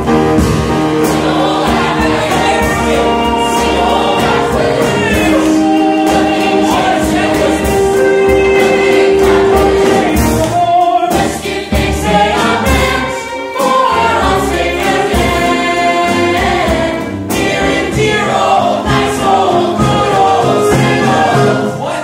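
Live musical-theatre number: the cast singing together in chorus, with sustained held notes, over a small pit band with drums keeping a beat.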